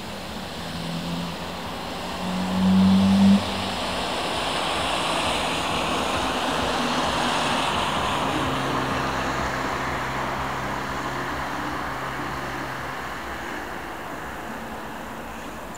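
Street traffic: a vehicle's engine and tyre noise swelling and then slowly fading as it passes, over a steady low engine hum. A louder low-pitched engine sound lasts about a second, two to three seconds in.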